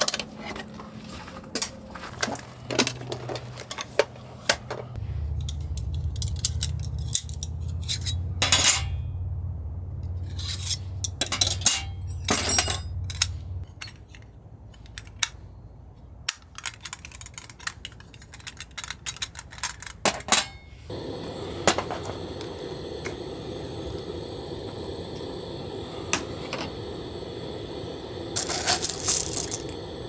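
Metal camp kitchen gear being handled: many separate clicks, clinks and taps as items are set down and a folding metal coffee dripper is opened. A steady background hiss comes in past the middle.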